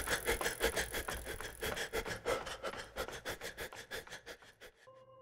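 Rapid rhythmic pulsing from the film's soundtrack, about six pulses a second, fading out steadily. A faint steady tone comes in near the end.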